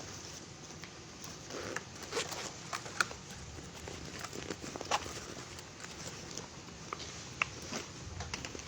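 Rustling and scattered light clicks from hands-on bodywork on a patient during a chiropractic-style adjustment. The sharpest clicks come about three, five and seven and a half seconds in.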